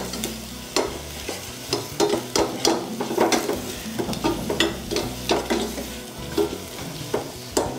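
Metal ladle scraping and knocking against a stainless-steel saucepan while shredded cabbage, carrot and capsicum are stir-fried in oil, with a steady sizzle beneath the irregular clinks.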